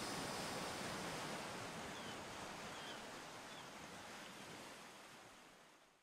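Wind blowing on the microphone outdoors, a steady rushing hiss with a fluttering low rumble, fading out near the end. A few faint high chirps sound in the middle.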